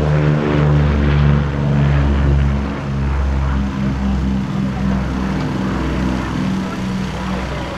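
Twin Allison V-1710 V12 engines of a P-38 Lightning running at power on the takeoff roll and lift-off: a steady, loud, many-toned propeller drone that pulses slightly.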